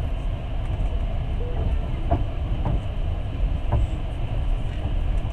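Passenger train's wheels running steadily on the rails, heard from aboard the carriage: a constant low rumble with a few sharp clicks.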